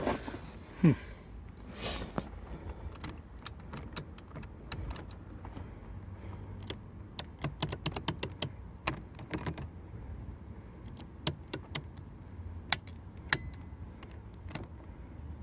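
Plastic power seat, door lock and mirror switches on a Lincoln Town Car's door panel clicking as they are pressed over and over, in irregular clusters, to check whether a newly fitted 20 amp fuse has brought them back to life. A low steady hum runs underneath.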